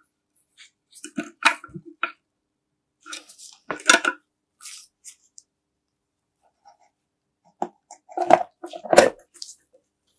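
Scattered clicks, knocks and clinks of small parts being handled and set down, in two bursts, the loudest knocks just before four seconds and around nine seconds. There is no honk.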